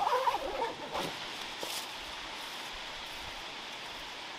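James Baroud hard-shell rooftop tent being pushed shut: a wavering creak for about a second, ending in a click, then a steady outdoor hiss.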